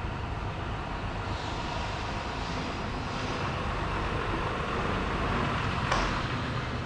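Small 3D-printed hot air engine running, its flywheel turning over a steady rushing noise, with one sharp click about six seconds in.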